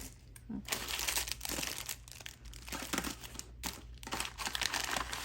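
Packaging crinkling and rustling as it is handled, a dense crackle that starts about a second in and carries on with a brief pause in the middle.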